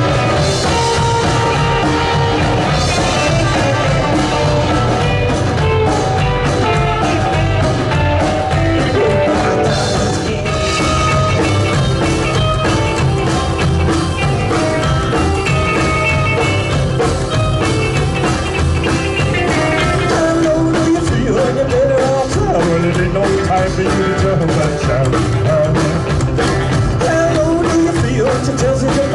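Rock band playing a rock-and-roll number live, with singing.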